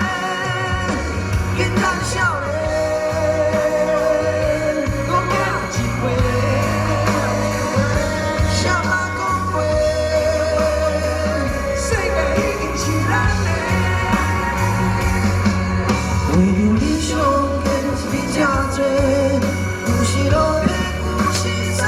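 Live rock band music with singing: a steady bass and beat under a held, bending lead melody.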